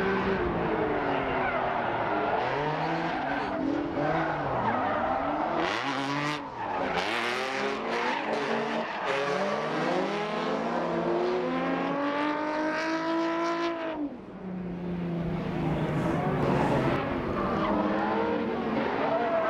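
Drift cars' engines revving hard up and down while the tyres squeal and skid in slides. A long rising rev near the middle cuts off sharply about two-thirds of the way through.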